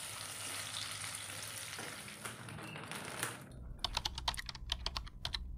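Sliced onion sizzling as it fries in a pan, stirred with a spatula. About three and a half seconds in this gives way to a quick, irregular run of keyboard-typing clicks.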